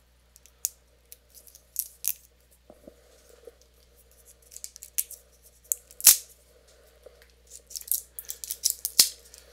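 Plastic shrink seal being picked and peeled off a hot sauce bottle's cap: scattered crinkles and small clicks, with one sharper click about six seconds in and a denser run of crackling near the end.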